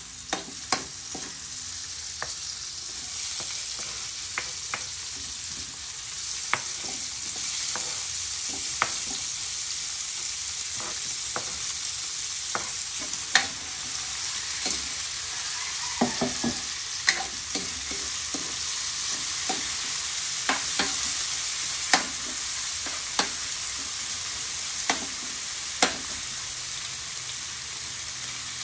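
Food sizzling steadily in a hot metal wok as it is stir-fried, with the spoon scraping and knocking sharply against the wok every second or two.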